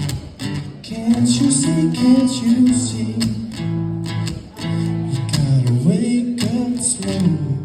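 Acoustic guitar strummed in a steady rhythm, with a wordless sung vocal line over it: the closing bars of a guitar-and-voice song.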